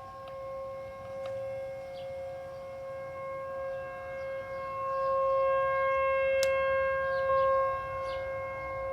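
Outdoor tornado warning siren sounding during its scheduled test. It holds a steady wailing tone at full pitch, swelling louder past the middle and easing off near the end.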